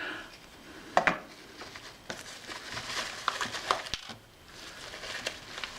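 Packaging rustling while small camera parts are lifted out and handled, with a few light knocks and clicks, the sharpest about a second in.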